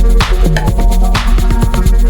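Background music: an electronic dance track with heavy bass and a steady beat of sharp drum hits about twice a second.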